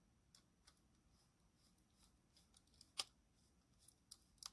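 Near silence, broken by a few faint clicks of a small screwdriver turning a small screw into the plastic chassis of an Airfix Royal Scot model locomotive. The sharpest click comes about three seconds in, and a few more come near the end.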